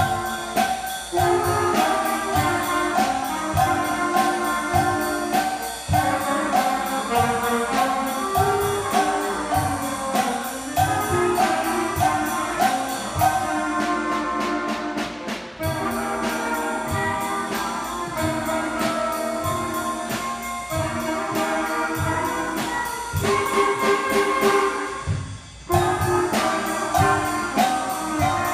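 Student band playing a tune, with saxophones and trumpets over a drum kit keeping a steady beat; the music stops briefly near the end, then comes back in.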